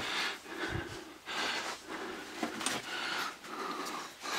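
A person breathing in and out in long breaths, about one a second, with a couple of light clicks a little past halfway.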